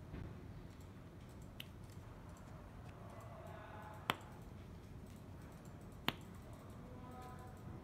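Two sharp plastic clicks about two seconds apart as cable connectors are handled, over faint rustling of cables.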